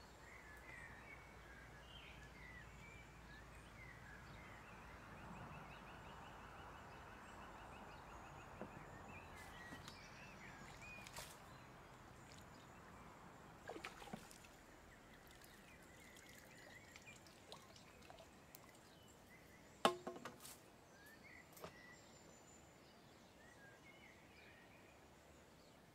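Near silence: faint outdoor pondside ambience with faint bird calls, broken by a few sharp clicks, the loudest about twenty seconds in.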